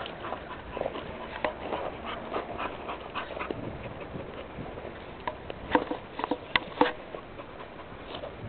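Pointer dog sniffing at a tortoise in quick short bursts, with scuffling on gravel and a few sharper clicks about six to seven seconds in.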